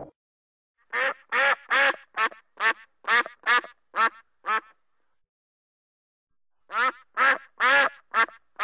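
A duck quacking: a quick run of about ten short quacks, a pause of about two seconds, then another run of quacks starting near the end.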